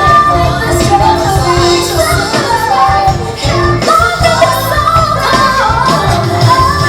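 Female lead singer with band accompaniment: a soulful pop ballad, her voice gliding between long held notes over bass and drums.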